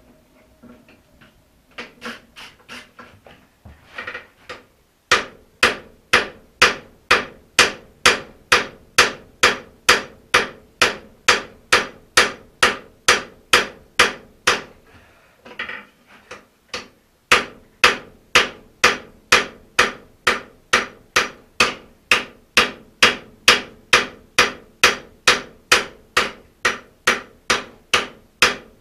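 Hand hammer striking a red-hot steel axe head on an anvil, forging it to final shape: a few lighter taps, then a steady run of blows at about two a second, each with a short ring. There is a brief pause about halfway before the blows resume.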